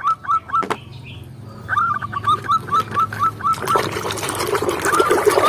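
A bird chirping in a steady run of short notes, about four a second, pausing about a second in and then carrying on. Water starts running underneath near the end.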